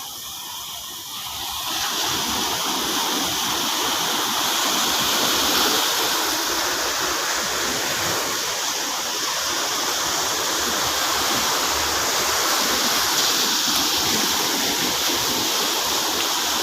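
Steady rush of surf and seawater at the shoreline, swelling about two seconds in and then holding steady.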